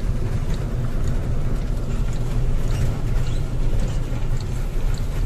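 Steady low engine and road rumble inside the cab of a moving vehicle, with a few faint light ticks.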